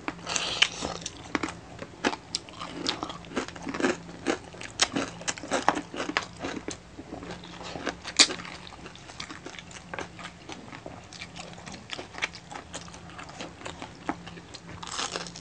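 Close-up mukbang eating sounds: irregular biting, crunching and chewing of crispy pata (deep-fried pork knuckle), with one louder crunch about halfway through.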